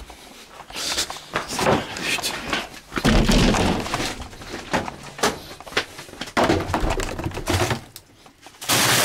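A string of knocks, thumps and handling noises, like objects and doors being bumped while a camera is carried around a room. A steady hiss starts suddenly near the end.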